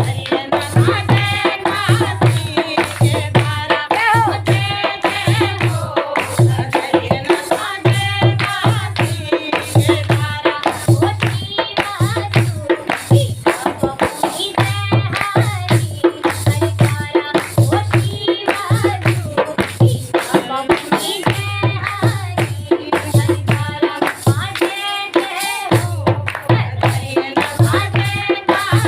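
Kumaoni devotional song: a woman singing over a steady drum beat of about two strokes a second, with a held note sounding underneath.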